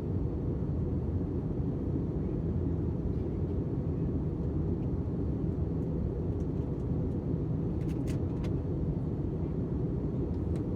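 Steady low rumble of a jet airliner, with a few faint clicks about eight seconds in.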